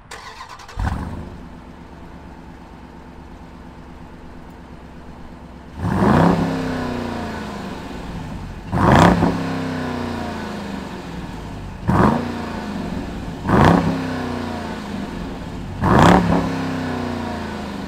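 2021 Dodge Durango SRT 392's 6.4-litre Hemi V8 starting and settling into a steady idle, then revved five times a few seconds apart, each rev rising sharply and falling back to idle.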